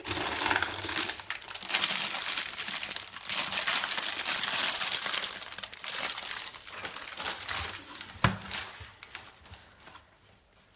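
Crinkling and rustling handling noise that starts abruptly and fades over the last few seconds, with a single sharp click about eight seconds in.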